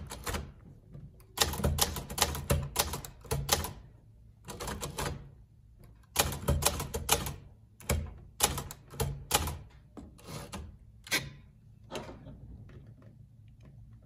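1963 Hermes 3000 manual typewriter typing an alignment test of alternating lowercase h and shifted H. Its type bars strike in quick clusters separated by short pauses, with the shift key and carriage clacking between groups, until the strikes die down after about eleven seconds.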